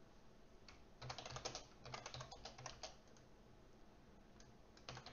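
Faint typing on a computer keyboard: a quick run of keystrokes starting about a second in and lasting about two seconds, then a pause, with typing starting again at the very end.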